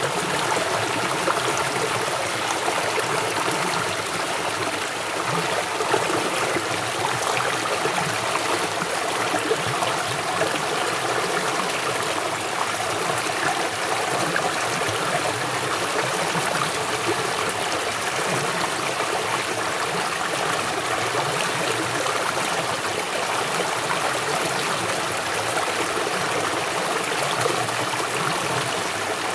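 River water flowing swiftly, a steady rushing and burbling over the stream bed.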